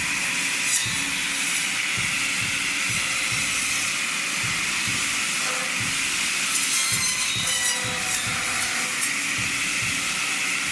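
Tree-cutting machine running: a steady high-pitched whine and hiss over a low knocking that repeats about twice a second.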